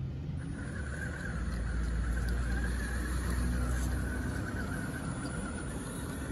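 Element Enduro Sendero RC crawler truck driving, its electric motor and geartrain whining steadily over a low rumble from the tires on dirt and grass, a little louder about two seconds in.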